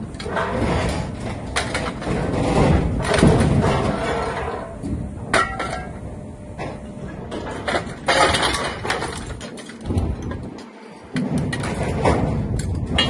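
Scrap metal clanking and crashing in a scrap-processing machine, dense irregular impacts over steady machine noise. It eases off briefly about ten seconds in, then starts again.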